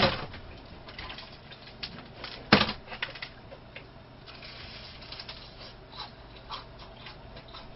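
Faint clicks and crackles of fried food being picked out of a paper box and bitten and chewed close to the microphone, with one sharper click about two and a half seconds in.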